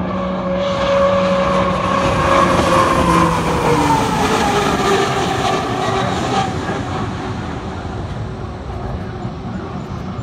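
Turbine-powered H1 Unlimited hydroplane racing past at speed. Its whine swells, drops in pitch as the boat goes by, and then fades.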